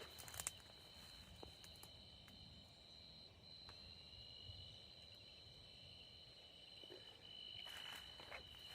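Faint, steady high-pitched trilling of night insects such as crickets. There are a few soft clicks at the start and some faint rustling near the end.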